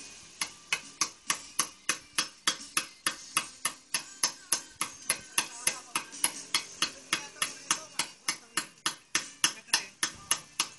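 Hand hammer striking a steel chisel to carve a stone slab. Sharp taps come in a steady rhythm of about four a second.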